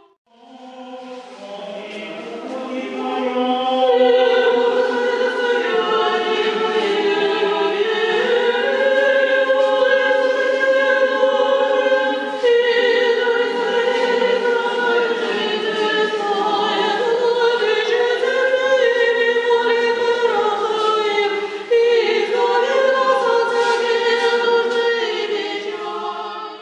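Choir singing slow, sustained chords that change every second or so, starting and stopping abruptly.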